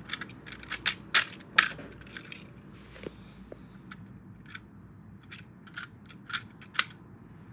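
Sharp plastic clicks and clacks from the nose couplers of two Plarail E5 series Shinkansen toy trains being handled and fitted together by hand. A quick run of clicks comes in the first two seconds, then a quieter stretch, then a few more clicks, the last the loudest near the end.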